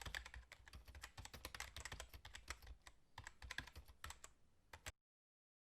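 Faint, rapid, irregular clicking like keys being typed, stopping abruptly about five seconds in.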